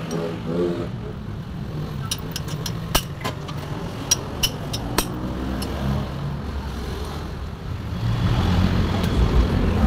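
Metal hand tools clicking and clinking against the valve springs and valve train of a Mitsubishi 4G15 cylinder head while a valve stem seal is pulled out with pliers. The sharp clicks come in a cluster a couple of seconds in, over a low steady rumble.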